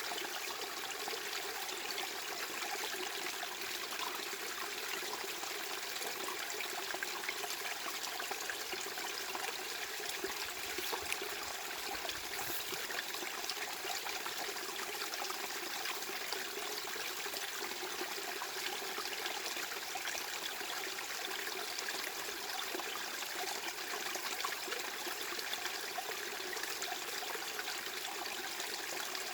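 Steady running water trickling like a small stream.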